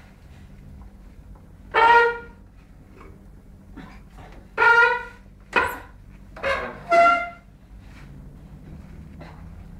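A baby letting out loud, held vocal squeals, five in all: one about two seconds in, then four close together a few seconds later, over a low steady hum.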